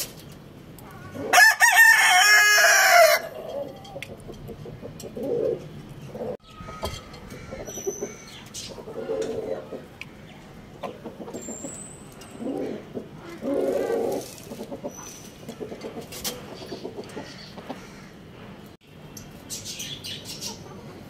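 A rooster crows once, loudly, about a second in, a call of about two seconds. Afterwards, softer low clucking calls come every second or two, with a few brief high chirps.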